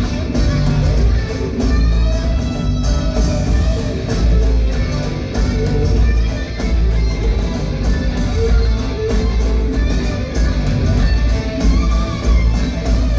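Live rock band playing: a strummed acoustic guitar over electric guitars, bass and drums, heard from the audience in a large hall with a heavy low end.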